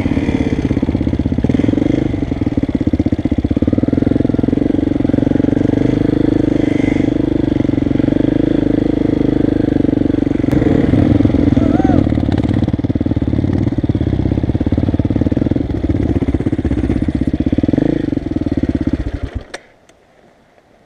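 KTM enduro dirt bike engine running at a low, steady pace while trail riding, then cutting off suddenly near the end as the bike stops.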